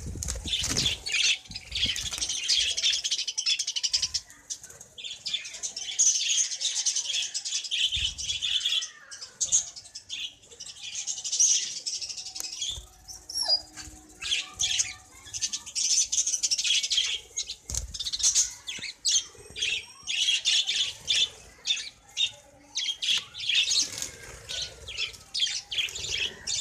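A flock of budgerigars chirping and chattering continuously, dense high warbling calls overlapping one another, with a couple of short low thumps along the way.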